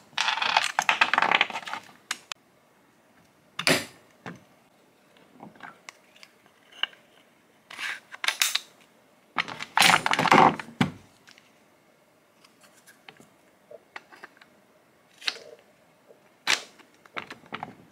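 Small metal-and-plastic handling noises as a pair of joined DeWalt trigger clamps is taken apart: the nut and bolt coming off, and the steel bars and plastic clamp heads clicking and clinking against each other and the bench. They come in scattered bursts with quiet gaps between, the busiest in the first two seconds and again about eight and ten seconds in.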